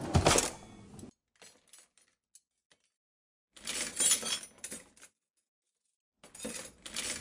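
Stainless steel cutlery clattering and clinking: a kitchen drawer full of knives, forks and spoons is slid open at the start, the forks clink against each other about halfway through as one is picked out of the stack, and another burst of cutlery clatter comes near the end.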